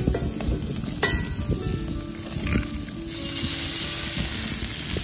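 Background music with a steady sizzling hiss that grows stronger about three seconds in.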